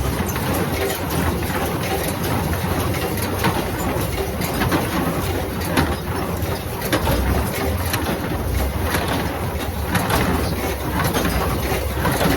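A tractor-pulled New Holland 316 square baler running while baling hay, a steady mechanical noise with many irregular knocks and clicks.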